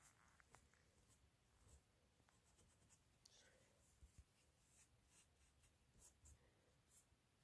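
Faint, light scratching of 000 steel wool rubbed over fresh gold leaf on a carved wooden picture frame, with scattered small ticks and a couple of short scratchy strokes. The gilding is being worn back at the edges so that the repair blends in.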